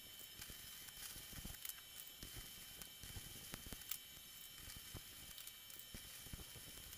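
Faint hiss with scattered clicks and crackles around stick arc welding on a steel stone-crusher shaft: the shaft is handled on the concrete floor with the arc off, and the welding arc strikes again near the end.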